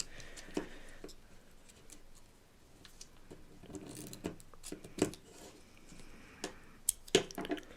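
Scissors cutting open a small plastic snack packet: scattered snips and crinkling of the wrapper, with a few sharper clicks about five and seven seconds in.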